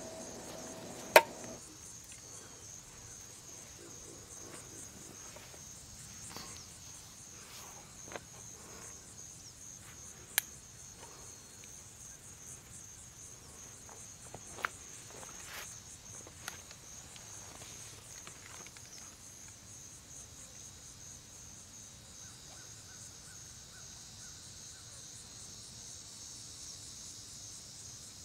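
Steady, high-pitched insect chirring, a fast pulsing trill from crickets or similar insects, with a few sharp clicks, the loudest about a second in.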